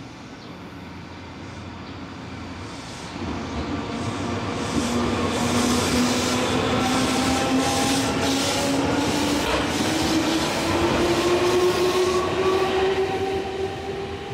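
Electric commuter train on the Nankai Koya Line running close by at a station platform, speeding up, its traction motor whine rising steadily in pitch over loud rolling rail noise. Its wheels clatter repeatedly over the rail joints.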